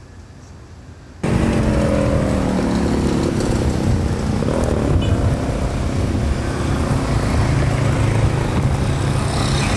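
A faint hush, then about a second in an abrupt cut to loud street traffic: motorcycle engines riding by, one engine note falling in pitch as it passes, over a steady low engine rumble.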